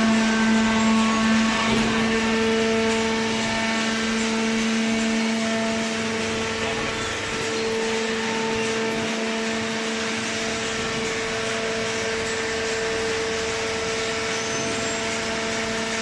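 Cardboard baler's hydraulic power unit running, a steady mechanical hum with a low drone and its overtones over a wide hiss.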